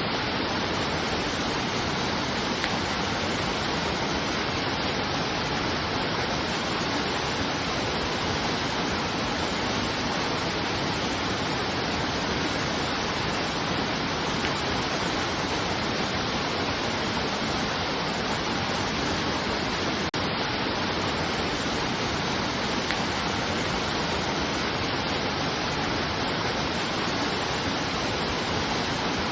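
Steady, even rushing of falling water, like a waterfall, unchanging throughout, with a momentary dropout about twenty seconds in.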